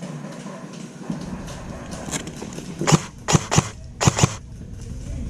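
Airsoft gun firing about five sharp, snapping shots in quick, uneven succession over a second and a half, roughly three seconds in.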